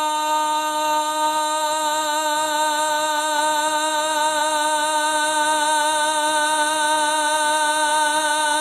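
A man's voice holds one long sung note without a break, in the style of devotional chanting. A gentle vibrato widens about three seconds in.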